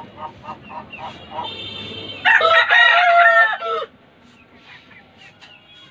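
An Aseel rooster crows once, loud and lasting about a second and a half, starting about two seconds in. Before it, chickens give a run of short clucks, about four a second.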